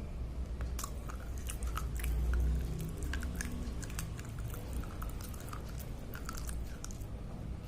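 Slate pencil being chewed up close: many irregular, crisp crunching and crackling bites over a steady low rumble.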